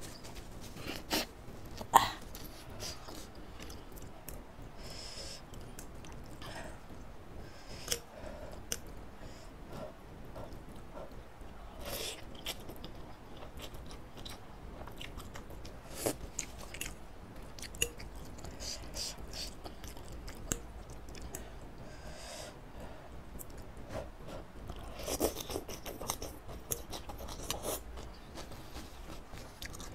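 Close-miked eating sounds of a person slurping and chewing laksa-flavoured instant noodles in soup, with bean sprouts and greens. Scattered sharp clicks and short wet bursts, the sharpest about two seconds in and a busier stretch near the end.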